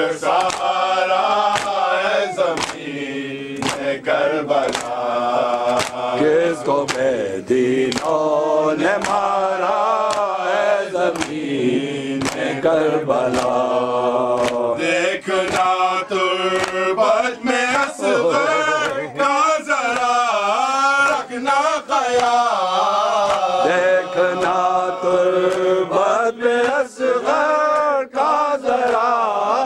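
Men chanting a nauha, a mourning lament, with the rise and fall of a sung melody, over a steady beat of hand slaps on the chest (matam), about one strike a second.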